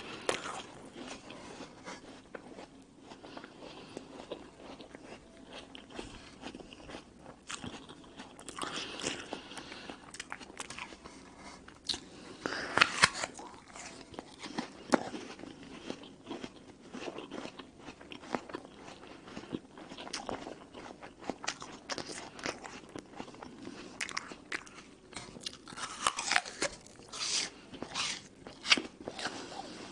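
Crisp red apple being bitten and chewed close to a clip-on microphone: steady wet crunching, with several louder bites at intervals.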